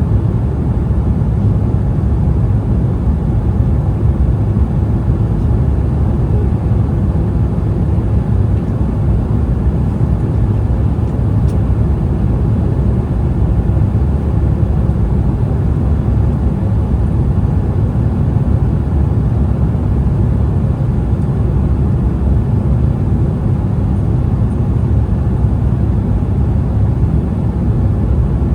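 Steady cabin noise inside an Embraer E175 airliner in flight: a constant low rumble of airflow and engine noise.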